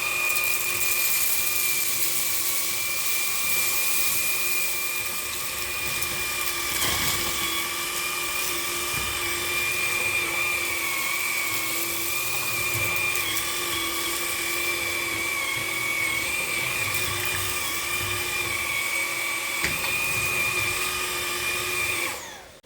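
Dreame V11 cordless stick vacuum running in its middle suction mode: a steady high-pitched motor whine over the hiss of rushing air, the pitch wavering slightly. It cuts off just before the end.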